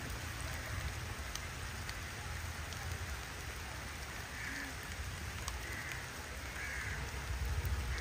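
Steady hiss of water, with a few faint short calls in the second half; a low rumble grows louder near the end.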